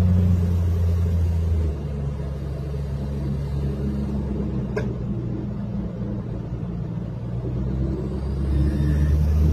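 Suzuki Every Wagon (DA64W) kei van on the move, heard from inside the cabin: a steady low engine hum with road noise. It drops in level about two seconds in and builds again near the end, with a single click near the middle.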